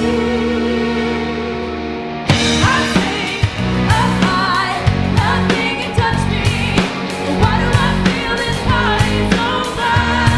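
Rock band playing: a held chord with a wavering, vibrato-laden note over it for about two seconds, then drums come back in with the full band and a wavering electric-guitar lead over them, with singing.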